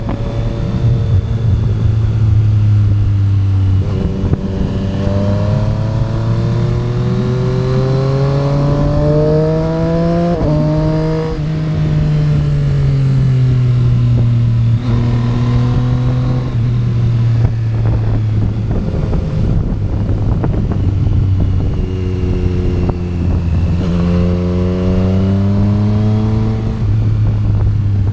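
Triumph Street Triple RS three-cylinder engine under way. The engine note climbs steadily for several seconds, drops sharply about ten seconds in, eases down and holds steady, then climbs again and drops near the end, as the bike accelerates, shifts and slows.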